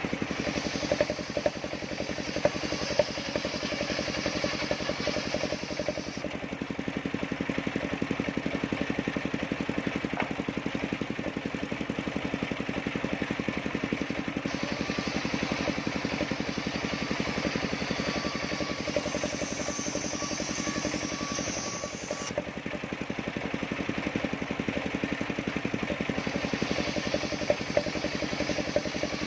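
Engine-driven large circular sawmill running steadily, its motor chugging at an even speed. A higher whine comes and goes three times, typical of the big disc blade cutting through the log.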